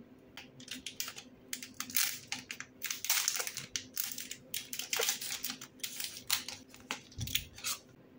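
Packaging crinkling and rustling as it is handled, in quick, irregular bursts, with a dull thump near the end.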